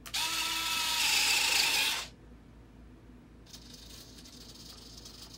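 Electric retractable landing gear of a Flightline P-38L RC model retracting: a loud mechanical whir from the retract units for about two seconds, then a fainter second run starting about three and a half seconds in.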